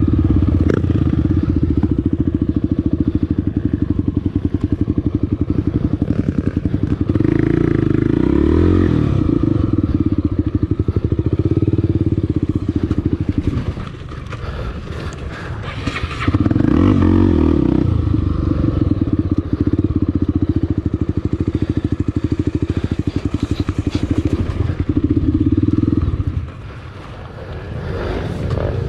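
Honda Tornado 300cc trail motorcycle's single-cylinder engine running under way, the revs rising and falling with the throttle. It revs up twice, and the throttle is briefly shut off about halfway through and again near the end.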